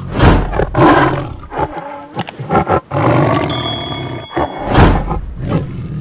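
Tiger roaring: a series of loud, rough roars, the strongest near the start, about a second in, and near the end.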